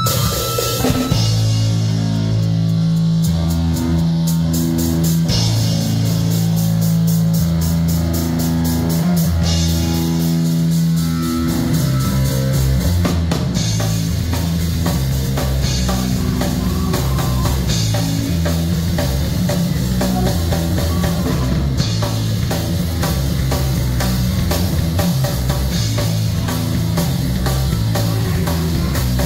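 Live rock band playing: a low guitar riff over a drum kit, loud and steady.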